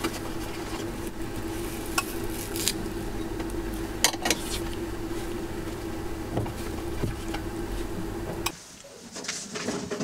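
Metal skewers clicking and clinking against a stainless steel bowl as chunks of beef liver, sheep's tail fat and onion are threaded onto them, with scattered sharp clicks over a steady low hum. The hum stops about eight and a half seconds in, leaving only a few faint clicks.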